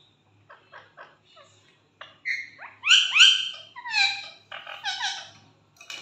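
Indian ringneck parakeet calling: after a few faint short sounds, a run of loud, short whistled squawks with sharply gliding pitch, from about two seconds in to near the end.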